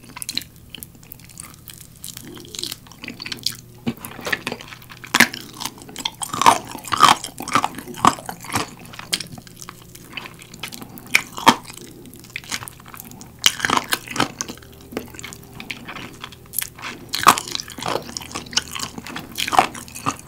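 Close-miked eating sounds of a person biting and chewing galbi-sauce-glazed grilled chicken drumstick meat off the bone: irregular sticky, wet mouth smacks and bites.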